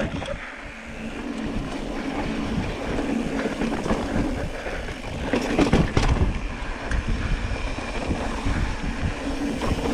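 Mountain bike rolling down a dirt and rock trail: tyres crunching over the ground and the bike rattling, with wind noise on the microphone. A burst of clattering comes about five and a half seconds in.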